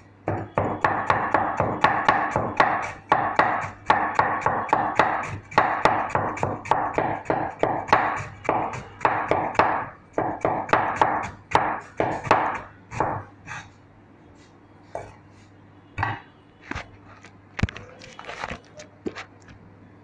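A cleaver shredding cabbage on a chopping board: rapid, evenly paced chopping strokes for about thirteen seconds, then slower, scattered chops.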